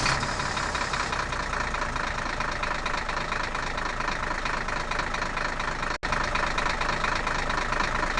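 A tractor engine sound running steadily, with a brief break about six seconds in.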